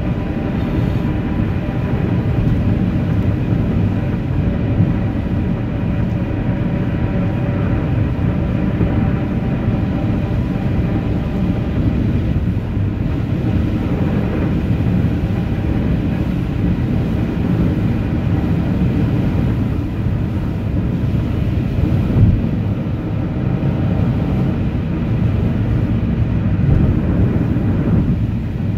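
Steady vehicle driving noise: a constant low rumble of engine and tyres on the road, with faint steady humming tones over it.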